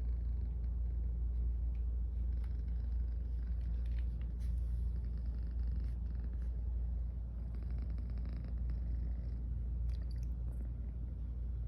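Domestic cat purring steadily: a continuous low, pulsing rumble.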